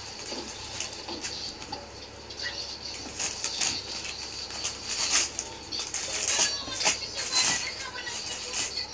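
Jack Russell terrier ripping and shaking gift wrapping paper: irregular crinkling and tearing of paper, with louder rips about halfway through and again near the end.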